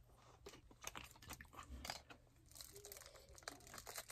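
Faint crinkling and crackling of plastic being handled, a plastic water bottle and a small plastic packet, with scattered sharp clicks.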